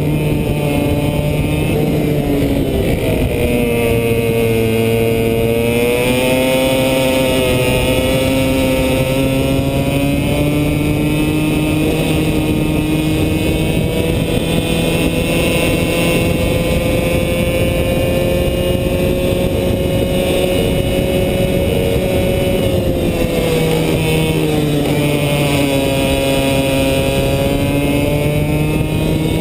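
100cc two-stroke kart engine running hard on track. Its note dips about three seconds in and again near the end and climbs back each time as the kart accelerates out of the corners, over steady rushing wind and road noise.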